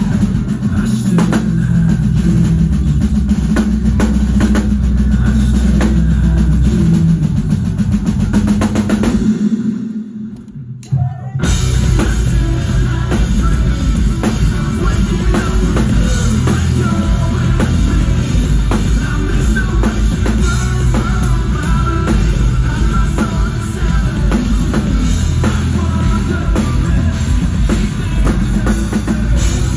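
Live rock band playing an instrumental passage with loud drum kit, bass drum, cymbals and electric guitars. About ten seconds in the music cuts out briefly, then the full band crashes back in.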